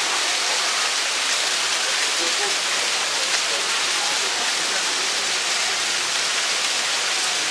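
Steady hiss of rushing water, unchanging throughout, with faint voices beneath it.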